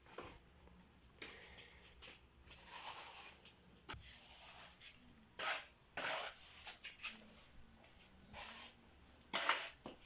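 Cement being mixed by hand with a shovel: a series of short, uneven scrapes and scoops with a few sharp knocks.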